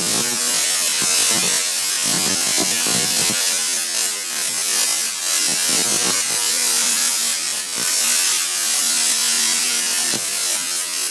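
Tesla coil firing, its sparks discharging into the air as a loud, continuous buzzing crackle.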